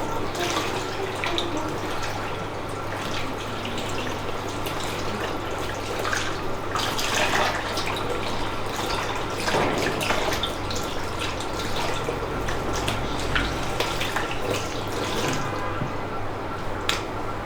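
Tap water running into a sink basin, with irregular splashes and drips.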